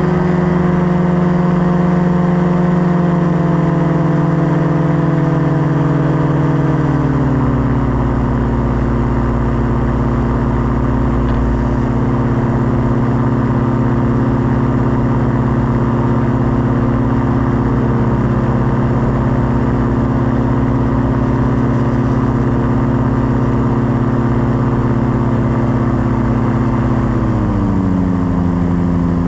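Paramotor trike engine and propeller running steadily in flight. The engine note drops in pitch about a quarter of the way through as engine speed falls, holds steady, then steps down slightly again near the end.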